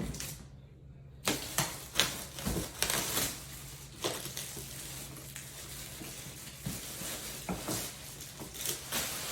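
Hard-shell plastic suitcases being handled, with scattered irregular clicks and knocks, under a faint steady low hum.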